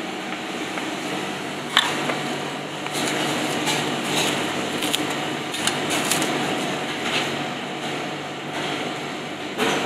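Plastic cling film being pulled and smoothed by hand, giving several short sharp crackles, over a steady ventilation hum.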